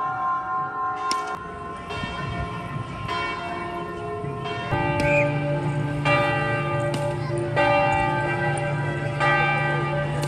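Bells ringing in slow, regular strokes about every second and a half, each stroke ringing on into the next; a low steady drone joins about halfway.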